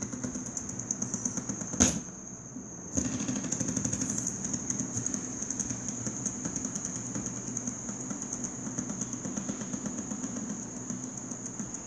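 Fidget spinners spinning on a tabletop: a fast, fine rattling whir of their bearings. There is a sharp click about two seconds in, and about three seconds in the rattle gets louder as another spinner starts, then it eases off slowly.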